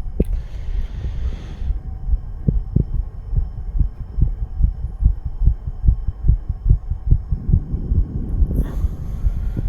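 A man's heartbeat recorded close up: a fast, steady run of dull low thumps, two to three a second. A short rush of noise passes about half a second in and again near the end.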